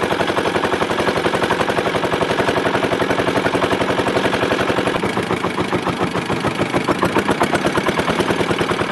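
Boat engine running with a loud, fast, even chugging of about ten beats a second, cutting in suddenly.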